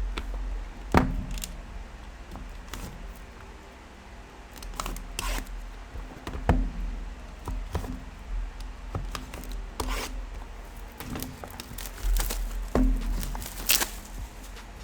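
Trading card boxes and packs being handled and opened: scattered clicks and taps with tearing and crinkling of packaging.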